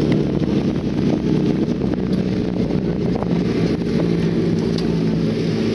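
Engines of autocross sprint buggies running steadily at constant speed, with a low even hum and no revving or passing, and wind noise on the microphone.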